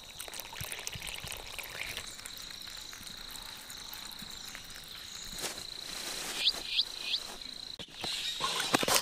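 A steady high insect drone, with water trickling and splashing as it is poured from a dried areca palm sheath. Three quick rising chirps come about two-thirds of the way in, and a few louder knocks and splashes near the end.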